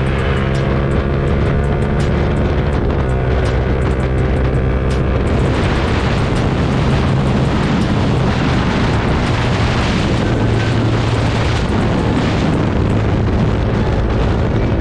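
Yamaha R15 V3's single-cylinder engine running through an SC Project S1 exhaust, held at steady revs with sharp crackling pops for the first few seconds, then a louder, rougher exhaust note from about five seconds in.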